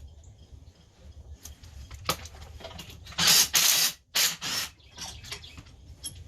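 Two short bursts of hissing spray, the first lasting under a second and a shorter one right after, with light clicks and taps around them.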